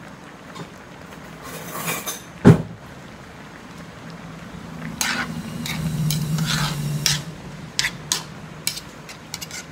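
A metal spoon clinking and scraping against a large aluminium cooking pan as the soup is scooped out to be tasted. There is one loud knock about two and a half seconds in, then a run of lighter clinks, with a low hum partway through.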